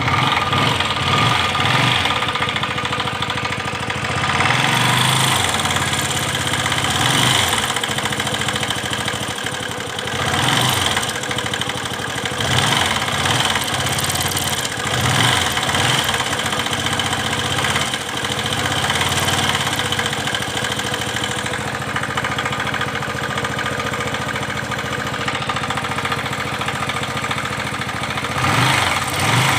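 Bajaj Pulsar 135 motorcycle's single-cylinder four-stroke engine running cold, idling with the revs rising and falling several times. It carries a strange noise that the owner hears only when the engine is cold and cannot identify.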